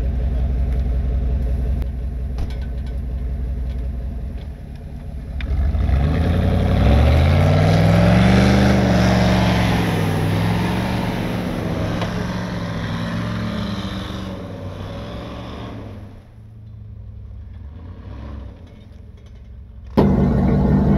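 Truck engine idling, then revving up about six seconds in and holding under load for several seconds during a snow recovery tow before easing off. A sudden louder engine idle comes near the end.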